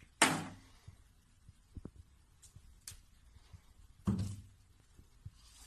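Two dull thumps about four seconds apart, each dying away within half a second, with a few faint taps between.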